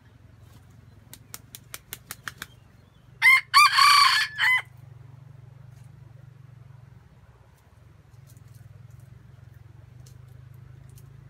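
Red junglefowl rooster beating its wings in a quick run of about seven sharp claps, then crowing once: a short, loud crow broken into several notes, the last one separate.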